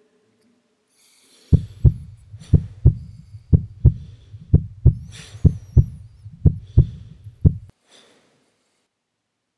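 Heartbeat sound effect: about seven low double thumps (lub-dub), roughly one a second, starting a second and a half in and stopping near the end. A faint high hiss with thin gliding tones comes and goes above it.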